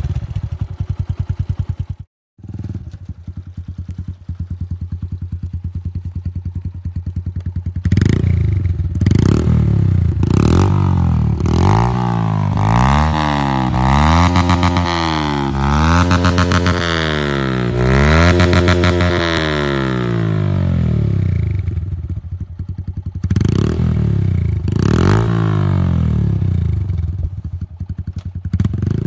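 Yamaha YBR 125's single-cylinder four-stroke engine through an Akrapovič slip-on silencer, first with the dB-killer fitted, then, after a short break about two seconds in, with the dB-killer removed. It idles with a fast, even pulse, then is revved again and again, its pitch climbing and falling, with short returns to idle between the runs of revs.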